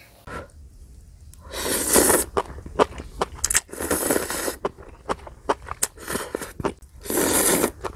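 A person eating a mala noodle dish: three long noisy slurps of noodles, about two seconds in, around four seconds and near the end, with chewing and clicks of chopsticks and a wooden spoon against the pan in between.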